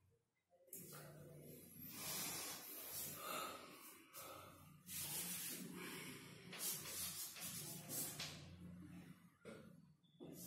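Chalk scratching on a chalkboard as words are written: a series of short scraping strokes with brief pauses, starting about a second in.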